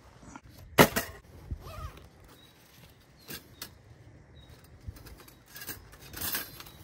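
Several scattered knocks and clicks, the loudest a sharp knock just under a second in, with a short scraping burst near the end.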